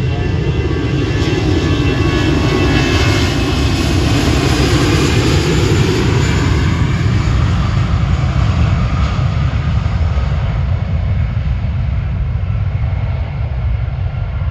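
Airbus A320 jet engines at takeoff power as the airliner departs: a loud, steady rumble and roar, with a faint whine that slowly falls in pitch. The higher part of the sound fades over the second half.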